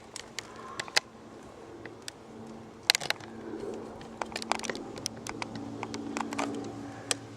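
Rubik's Cube being twisted by hand: irregular plastic clicks and clacks as its layers turn, over a low steady hum.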